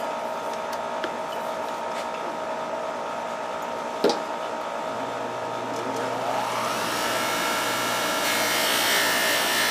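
Bench grinder with a cloth buffing wheel switched on with a click about four seconds in; its motor whine rises as it spins up and then runs steadily at full speed, ready for polishing.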